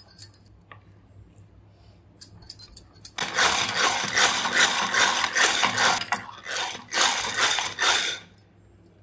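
A handheld whisk blender churning runny chocolate crepe batter in a ceramic bowl: a dense, splashing whirr that starts about three seconds in, pulses unevenly with short dips, and stops just before the end. Before it starts, there are only a few light clicks of a spoon in the bowl.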